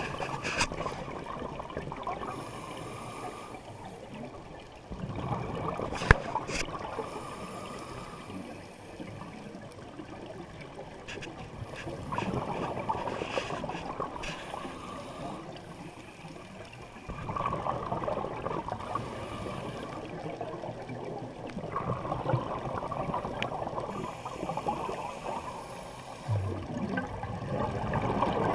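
Scuba diver breathing on a regulator, heard underwater: a bubbling rush of exhaled bubbles swells for a few seconds at a time, about every five seconds, with quieter stretches between breaths. One sharp click about six seconds in.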